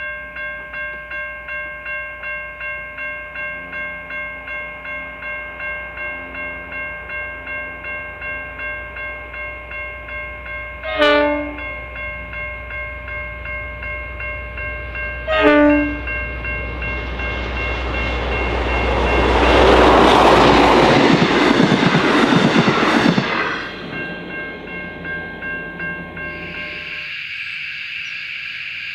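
V/Line N-class diesel-electric locomotive N460 hauling a passenger train as it approaches, its engine rumble building. It sounds two short horn blasts about four seconds apart, then passes close by at speed in a loud rush of engine and wheel noise that peaks and fades quickly.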